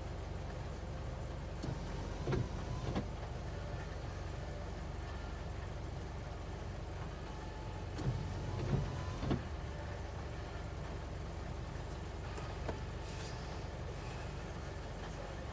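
Nissan NT400 Cabstar diesel engine idling with a steady low rumble broken by irregular knocks, a cluster about two seconds in and another around eight to nine seconds in. This is the misfire at idle the owner complains of, still present after replacement shims for over-adjusted tappets.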